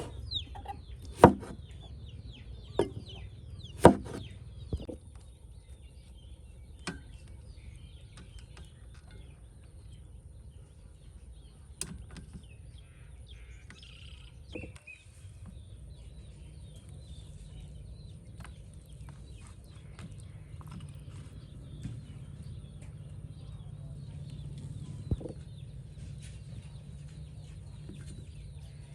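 Hens clucking faintly over a steady low rumble, broken by sharp knocks and clatters, the loudest two about one and four seconds in, with a few more spread through the rest.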